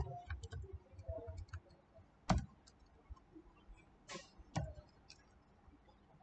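Scattered computer keyboard keystrokes and clicks, with sharper clicks a little over two seconds in and again about four and a half seconds in.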